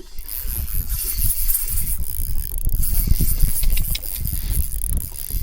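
Fishing reel being cranked against a fish, its gears clicking and whirring, over dense low rumbling thumps.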